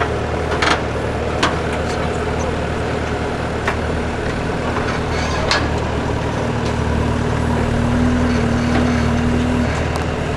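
Skid steer loader's engine running steadily, with several sharp clanks in the first half. A higher, steady hum joins about six seconds in and lasts about three seconds.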